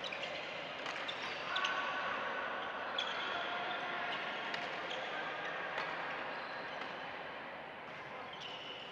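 Badminton rackets hitting shuttlecocks across several courts, irregular sharp pops, with short squeaks of court shoes on the floor and a background hubbub of voices.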